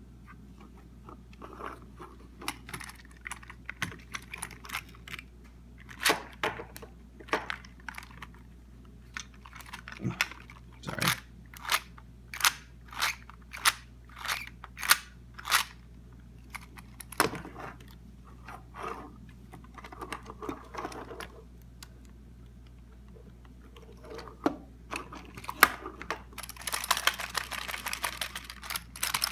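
3D-printed plastic eNABLE Phoenix v2 prosthetic hand being handled: a run of separate sharp plastic clicks and knocks, about one a second, as its parts move and meet the wooden tabletop. Near the end the clicks turn into a fast, dense clatter as the hand is moved quickly about.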